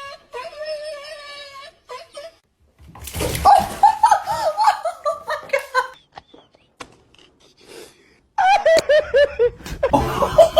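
A person laughing in two bouts of quick repeated bursts: the first about three seconds in, the second from a little past eight seconds. A held, pitched voice-like sound comes before them at the start.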